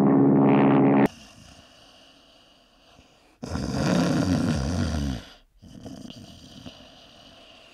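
Music cuts off about a second in. After a short quiet stretch comes one loud snore lasting nearly two seconds, added as a comic sound effect.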